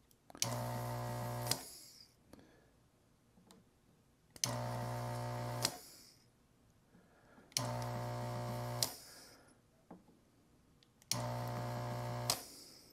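Electric desoldering gun's vacuum pump buzzing in four bursts of about a second each, each ending with a sharp click, as it sucks molten solder off a relay's pins on the circuit board.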